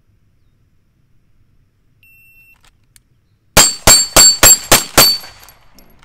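A shot timer gives a short start beep, then a semi-automatic pistol fires six quick shots about a third of a second apart. Each shot carries a metallic ring, from steel targets being hit.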